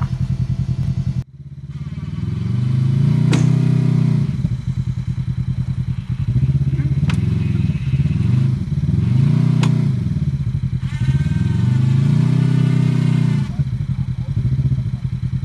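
Off-road vehicle engine revving up and down in repeated swells, with three sharp knocks in between.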